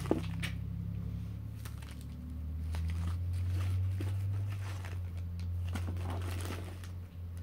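Items being handled in a packed gift box: faint rustling and light clicks of packaging over a low steady hum.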